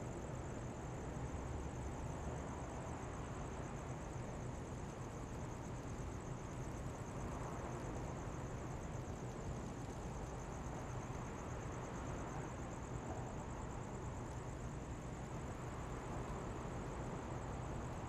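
Steady distant hum of city traffic on a quiet street, with a continuous high, finely pulsing trill above it.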